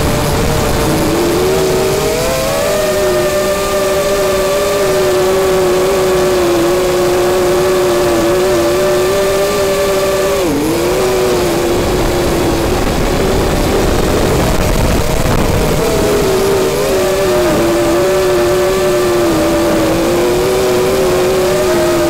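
Quadcopter's electric motors and propellers whining steadily, heard from the camera on board, with wind rushing over the microphone. The pitch rises a couple of seconds in, dips sharply and recovers about halfway through as the throttle is chopped and brought back, and shifts again as the craft manoeuvres.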